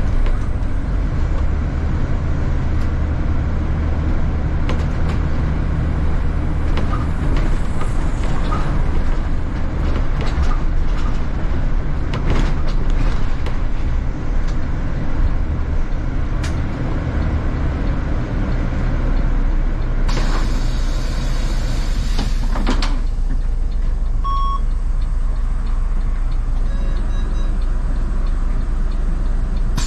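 City bus heard from inside the cabin, its engine running with a steady low drone and loose rattles and clicks. About two-thirds through comes a hiss of air lasting a few seconds, followed by a short single beep.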